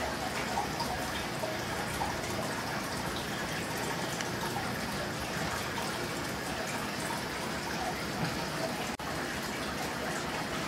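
Steady trickling and splashing of aquarium water, which drops out for an instant about nine seconds in.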